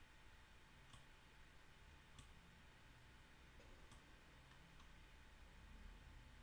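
Near silence with a few faint, sparse computer mouse clicks over quiet room tone.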